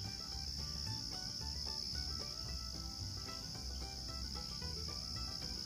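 Insect chorus, a steady high-pitched trill that holds unbroken throughout.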